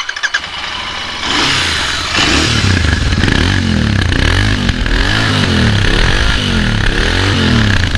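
Royal Enfield Interceptor 650's 648cc oil-and-air-cooled parallel-twin running at a standstill, heard close to its chrome muffler. About halfway through, the throttle is blipped again and again, so the revs rise and fall several times.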